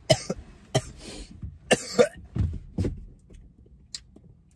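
A man coughing, about five rough coughs in quick succession over the first three seconds, the cough of someone who has just inhaled smoke. A single sharp click near the end.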